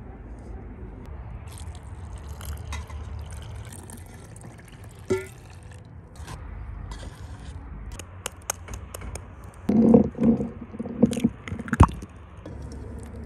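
Hands working flour in a stainless-steel bowl and water being poured in: scraping, splashing and clinks over a steady low outdoor rumble. The loudest splashes and knocks come near the end.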